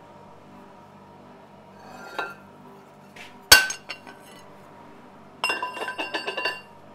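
Hand-spun fly press with weighted balls on its arm: a short metallic scrape about two seconds in, then one sharp ringing metal bang as the screw drives the press tool down onto the 3 mm steel disc in the former. Near the end comes about a second of rapid rattling metallic clinks from the steel pieces and tooling, over a faint steady hum.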